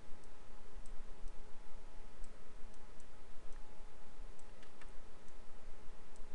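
Computer mouse clicking at irregular intervals, about a dozen short, faint clicks, as vertices are selected and dragged. Under it runs a steady microphone hiss and low hum.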